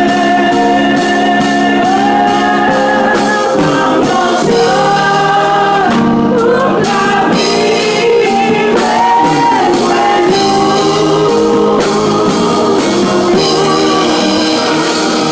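Gospel music: voices singing a melody over instruments with a steady beat.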